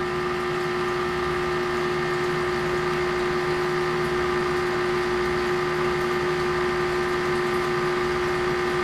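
Steady machine hum with one strong constant tone and fainter higher tones above it, unchanging throughout.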